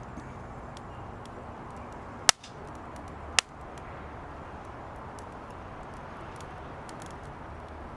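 Firewood burning in a fire pit, crackling faintly over a steady rush, with two loud sharp pops a little over two seconds in and about a second later.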